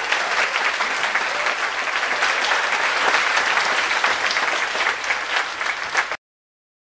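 Audience applauding steadily, a dense spread of many hands clapping, cut off suddenly a little after six seconds.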